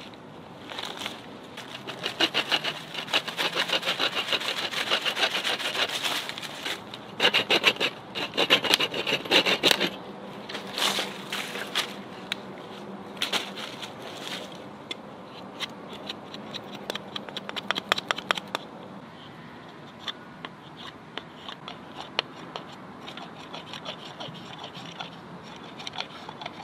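A large saw-backed survival knife scraping and sawing wood to shape bow-drill parts. Rapid strokes come in loud bursts through the first ten seconds, turn sparser, and are fainter and scattered after about eighteen seconds.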